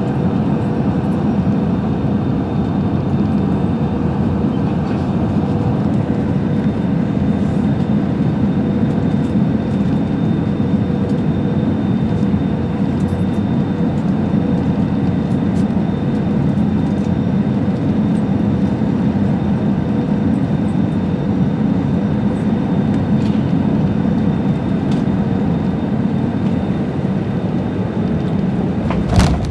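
Airliner cabin noise on final approach and landing: a loud, steady engine and airflow drone with a low hum. Near the end there is a single sharp thump as the landing gear meets the runway.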